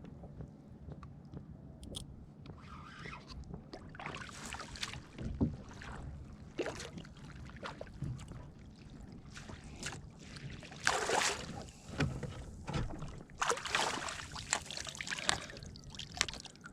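Water sloshing and splashing around a fishing kayak at sea, coming in irregular bursts, with a few louder splashes in the second half.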